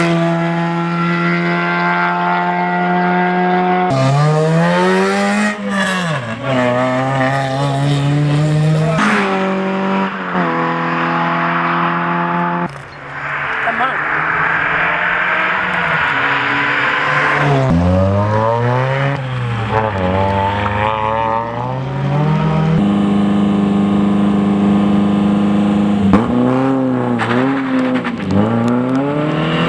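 Rally cars' engines revving hard and dropping in pitch at each gearshift, some holding a steady high rev, in a string of short shots joined by abrupt cuts. A stretch of rushing noise sits in the middle.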